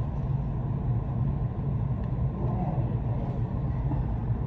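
Steady low hum of restaurant background noise, with a faint voice about two and a half seconds in.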